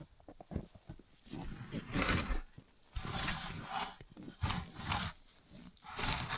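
Footsteps crunching through deep, dry snow: four or five heavy, uneven steps.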